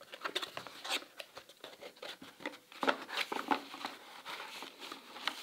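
Small cardboard box being opened by hand and white card inserts slid out of it: irregular rustling and scraping of card and paper, with small clicks.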